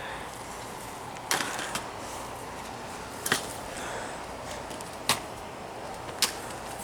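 Scattered sharp knocks and clatters of junk being thrown out of a truck and landing. There are about five separate hits a second or two apart, the first about a second in.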